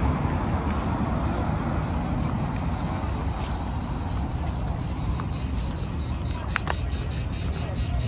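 Cicadas singing in the trees: a thin, steady high whine, then from near the end a pulsing chirr of about three pulses a second. Underneath is a steady low rumble of road traffic.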